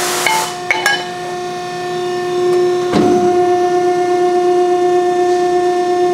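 CNC press brake running through a bend cycle with a steady machine hum. There is a short hiss and a few clicks in the first second, then a single clunk about three seconds in as the bend is made, after which the hum is slightly louder.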